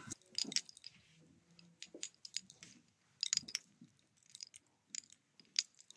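Quiet, irregular light clicks and crackles: handling noise from a phone being moved about close to its microphone.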